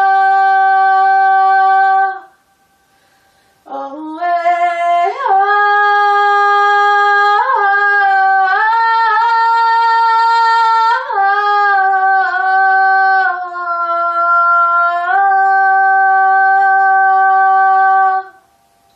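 A woman singing wordless, drawn-out vocal tones: a held note that breaks off, a swoop up into a phrase of slow sliding pitch changes, then another long held note that stops near the end.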